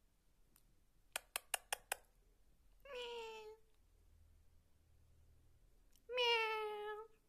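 Domestic cat meowing twice, each meow under a second long, the second one louder, about three and six seconds in. Before the first meow, about a second in, comes a quick run of five sharp clicks, the loudest sounds here.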